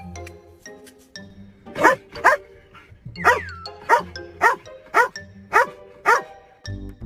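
A dog barking repeatedly, about two barks a second, starting about two seconds in, over steady background music.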